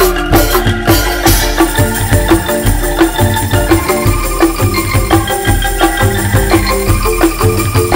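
Banyumas kentongan ensemble playing: bamboo slit drums and other percussion knock out a fast, steady, repeating rhythm of pitched wooden tones over low thumps.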